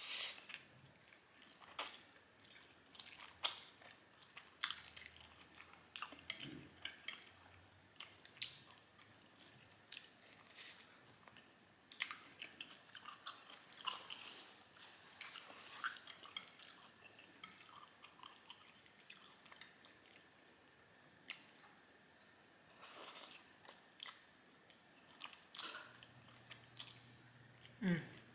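Close-miked mukbang eating of Korean black bean noodles: irregular wet chewing and mouth smacking, with occasional crunchy bites.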